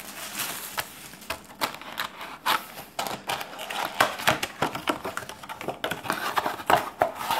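Plastic shrink-wrap crinkling and tearing as it is pulled off a cardboard trading-card booster box, with irregular sharp clicks and taps as hands turn and grip the box.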